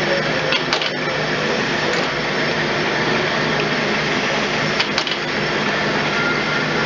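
Traub A25 cam-type automatic lathe running steadily while machining brass bar stock into nut blanks. Short sharp clicks come about a second in and again about five seconds in.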